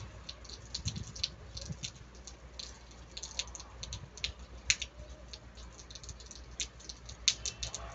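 Rain shower: close raindrops tapping in quick, irregular clicks, some louder than others, over a low steady rumble.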